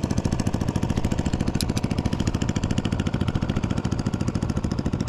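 Small wooden fishing boat's engine running steadily, a fast, even pulsing that does not change.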